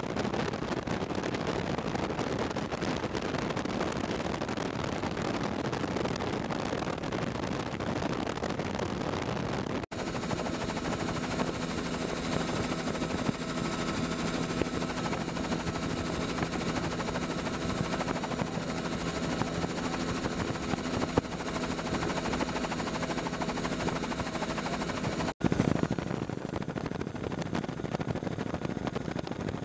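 Helicopter heard from inside the cabin: continuous rotor chop and engine drone with wind noise. In the middle stretch it turns into a steady hum of several even tones. The sound drops out briefly twice, once about a third of the way in and once near the end.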